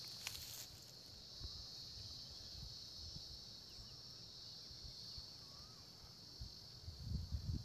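Steady high-pitched chirring of insects such as crickets, with faint low rumbling bumps underneath that grow a little near the end.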